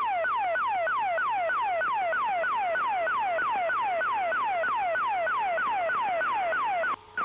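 Practice emergency locator transmitter (ELT) signal heard over the aircraft radio: a falling swept tone repeating about three times a second, strong enough to break squelch. It cuts out for a moment near the end.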